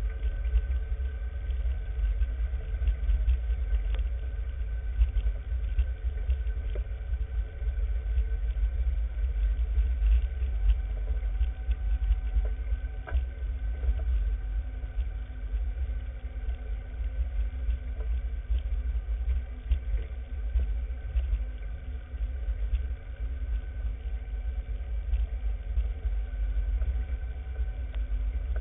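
Off-road vehicle driving slowly over a rocky trail: the engine runs steadily under a heavy, uneven low rumble.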